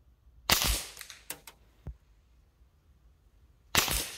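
.22LR semi-automatic rifle (a Ruger 10/22 variant) firing two shots about three seconds apart, each with a short ringing tail. A few fainter clicks follow the first shot.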